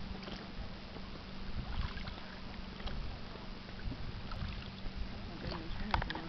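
Water lapping and splashing against the hull of a small boat on choppy sea, with a faint low steady hum under it and a few light knocks and splashes, several near the end.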